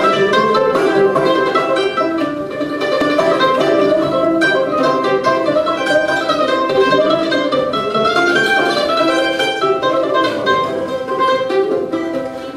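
Old-time string band playing an instrumental passage, with a mandolin and a banjo picking the tune together.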